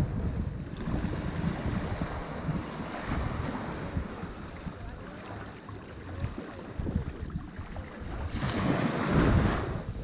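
Ocean waves washing onto a shore, with one wave building and crashing near the end as the loudest moment. Wind buffets the microphone throughout.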